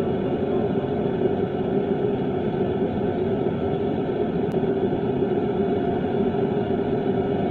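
Home aluminium-melting furnace running with a steady, even rushing noise, strongest low in pitch.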